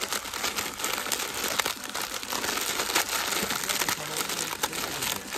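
Block of dry Sapporo Ichiban Shio Ramen noodles being crushed by hand inside its sealed plastic packet: continuous crinkling of the bag with dense crackling as the noodles break up.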